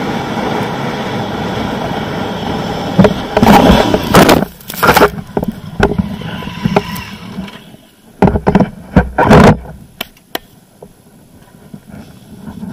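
Honda Africa Twin's parallel-twin engine and wind noise while riding a sandy track, then a run of loud scraping knocks about three to five seconds in as the motorcycle goes down in the sand. After that it goes much quieter, with a few short bumps.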